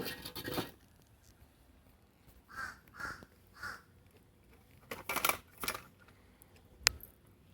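Harsh, crow-like calls from adult blackbirds upset over a drowning young bird, three in quick succession a few seconds in. Short noisy bursts come at the start and again past the middle, and a single sharp click near the end is the loudest sound.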